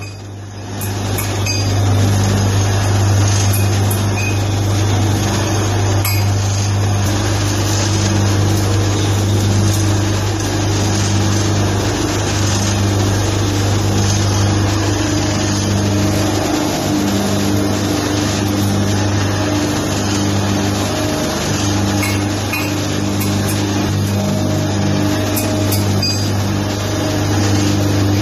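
Roll slitting machine running while cutting a roll of black tape into narrow rolls: its electric motor and spinning shaft give a steady low hum. A higher steady tone joins about seven seconds in, with occasional faint clicks.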